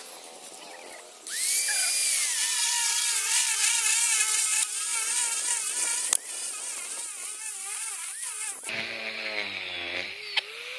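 Angle grinder cutting into a concrete floor: a loud, steady grinding that starts about a second in and drops to a lower level near the end, where music with a gliding voice comes through over it.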